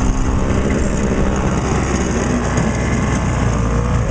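A small engine running steadily, with a constant low hum.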